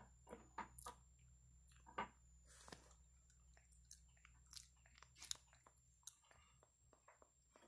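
Faint, irregular mouth clicks and smacks of a java macaque chewing while it grooms.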